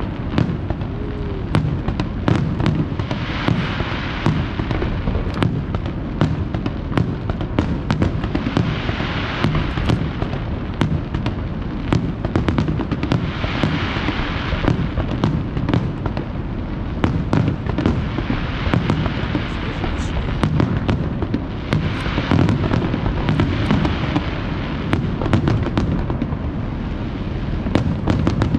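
Aerial fireworks display: shells bursting in a dense, unbroken run of sharp bangs, with swells of hissing crackle every four to five seconds.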